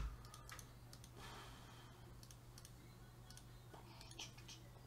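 Near silence: room tone with a steady low hum and a few faint clicks, a sharper click right at the start.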